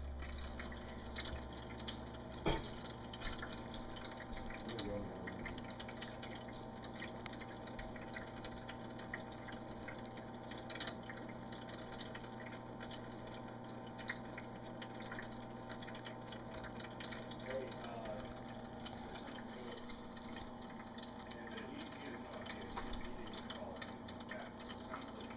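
A cat eating raw ground lamb from a glass dish: wet chewing and lapping with many small irregular clicks, and one sharper click about two and a half seconds in.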